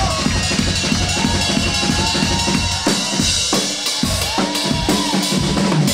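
Live drum and bass band playing: a fast drum-kit beat with heavy bass, and a vocalist singing over it. The low bass thins out for a moment a little past halfway.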